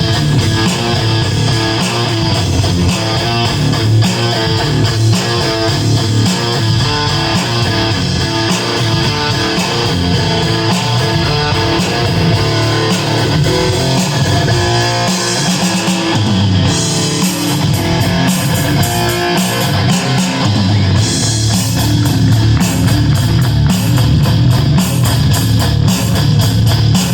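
Electric guitar played through a distortion effect, strummed chords and riffs, loud and continuous. The sound turns brighter about two-thirds of the way through.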